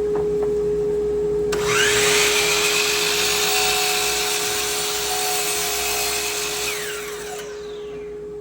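Miter saw motor switched on about a second and a half in: it spins up with a rising whine, runs steadily for about five seconds, then winds down near the end. A steady hum runs underneath throughout.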